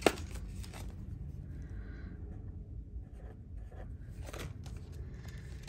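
Paper cash envelopes and banknotes being handled and rustled, with one sharp click just after the start and a few softer clicks and rustles after it.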